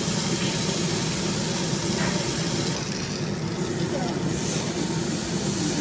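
Marinated yakiniku meat sizzling on a grill grate: a steady hiss of fat and marinade frying.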